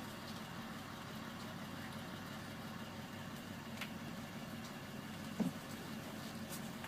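School bus engine idling, heard from inside the passenger cabin as a steady low hum. A short, sharp sound stands out a little over five seconds in.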